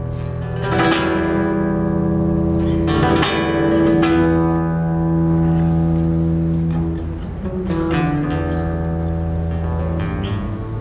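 Acoustic guitar played solo, with chords struck every few seconds and left to ring.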